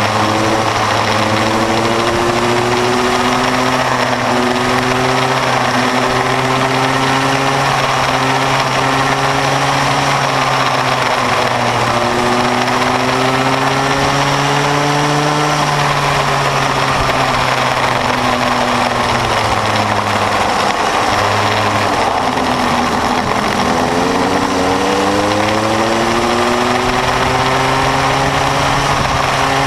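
Bambino go-kart's small 50cc two-stroke engine heard on board through a lap, its pitch climbing slowly along the straights and dropping back into the corners, lowest a little past the middle before climbing again.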